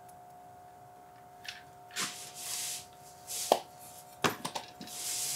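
Handling noise from an LMT AR-10-pattern rifle: a few light clicks and knocks of the upper and lower receivers, and hands rubbing and sliding on the rifle. The receivers are a tight fit with no rattle.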